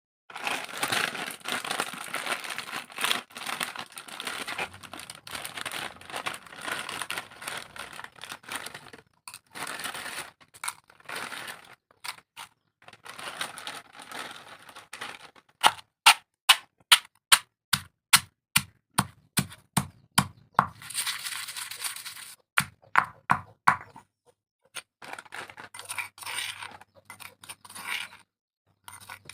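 Crunchy snacks being bitten and chewed close to the microphone, with dense crackling crunches at first. Later come sharp, separate crunches at about two a second, then scattered crackles again.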